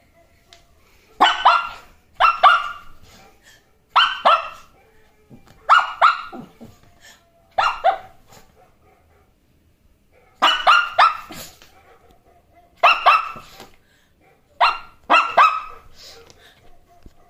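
Shih Tzu puppy barking in about eight bursts of two or three sharp barks each, roughly every two seconds, at a cellphone hidden under the blanket.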